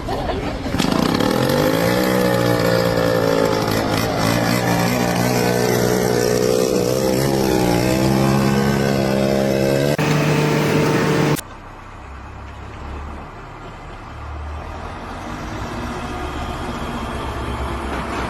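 An engine revs up about a second in and keeps running fast and loud, its pitch wavering slightly. About eleven seconds in it cuts off abruptly to a quieter low rumble.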